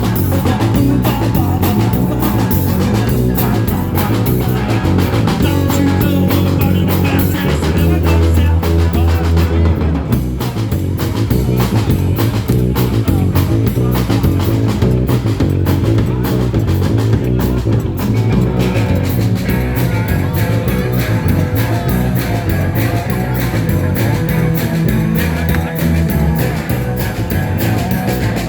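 Fast rock song with electric guitar and drum kit over a steady, driving beat.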